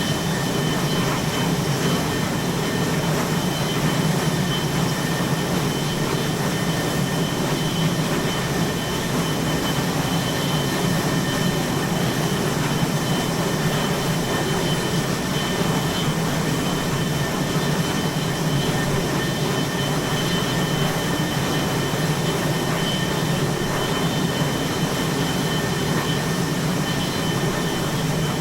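Aircraft carrier flight deck ambience: a steady, unbroken low rumbling roar with two thin, steady high whines above it and no distinct events.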